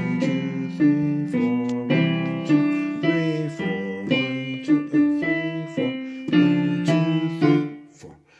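Casio Privia digital piano played with both hands: a steady succession of simple notes and chords in an even beat, the last chord dying away near the end.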